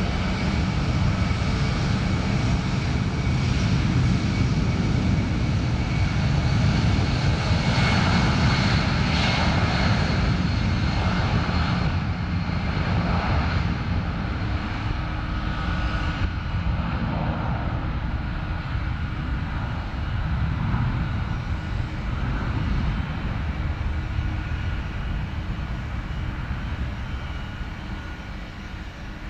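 Twin-engine jet airliner's engines at takeoff power during the takeoff roll: a steady roar that swells, then slowly fades as the plane lifts off and climbs away.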